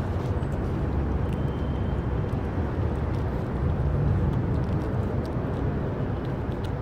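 Steady low outdoor rumble, even throughout, with a few faint small clicks over it.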